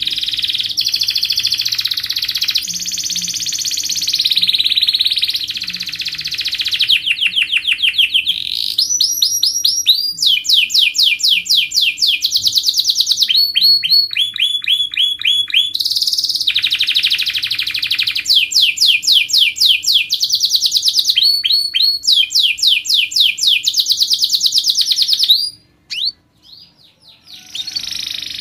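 Domestic canary singing a long song of tight, fast rolls: strings of rapidly repeated rising notes, each roll changing to a new note. The song breaks off briefly near the end, then resumes.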